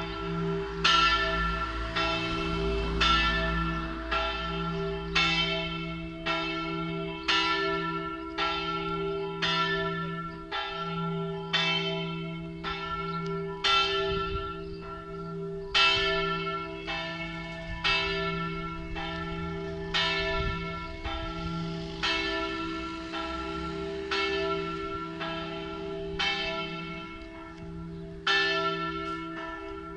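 Large bronze church bell, tuned to E slightly sharp and cast by Giovanni Battista De Poli in 1921, swung in the Friulian style, its clapper striking in a steady run a little faster than once a second while a deep hum rings on between the strokes. The tolling is the last call to a funeral.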